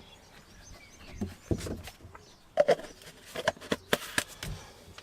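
Scattered light knocks and clicks of hands handling a greased steering column and its fittings during fitting to a steering rack, with a cluster of quick knocks near the end.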